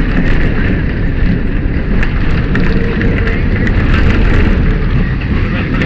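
Tram running along its rails: a loud, steady rumble with quick rattles and clicks running through it.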